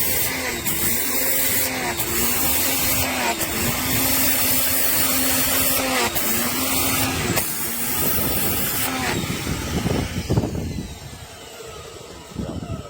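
H.yeed 2000 W electric pressure washer running, its motor humming under the hiss of the water jet. The spray hiss breaks off briefly several times, and the motor's pitch dips each time. Near the end the spray stops and the sound dies down.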